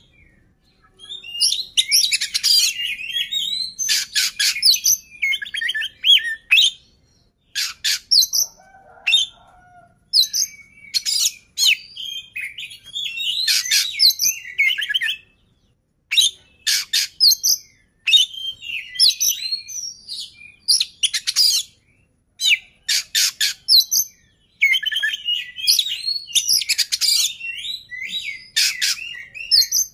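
Oriental magpie-robin (kacer) singing loudly in bursts of varied whistles and rapid chattering trills, with short pauses between phrases.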